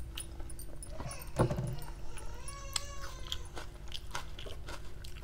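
Close-up chewing and mouth clicks of someone eating rice by hand, with a short louder low sound about one and a half seconds in. Midway, a young child's drawn-out wail rises and falls in pitch, faintly, behind the eating.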